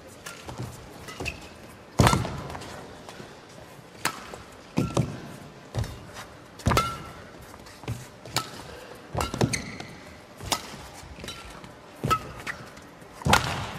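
Badminton rally: sharp racket-on-shuttlecock hits about once a second, exchanged back and forth, with short squeaks of shoes on the court floor after some shots.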